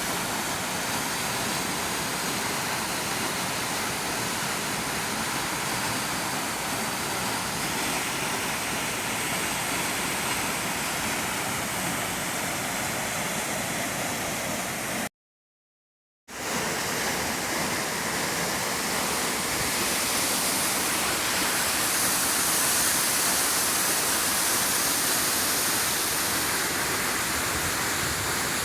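Waterfall roaring steadily, a continuous rush of falling water. About halfway through, the sound drops out completely for about a second, then returns slightly louder and brighter.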